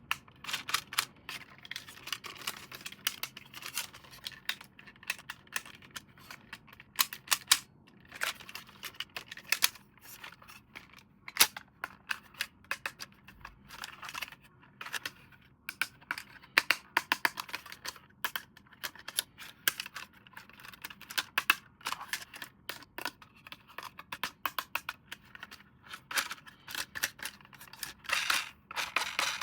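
Hands handling a toy and its packaging: irregular clicks, taps and plastic crinkling in quick, uneven runs.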